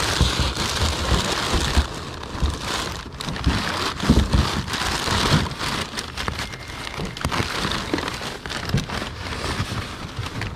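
Crumpled newspaper packing rustling and crinkling as hands dig through it in a cardboard box.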